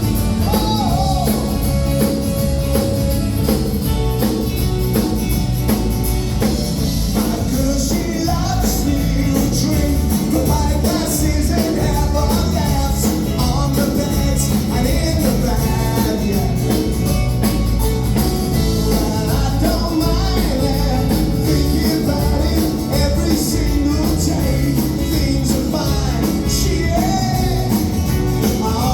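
Rock music with singing, guitar and a steady beat.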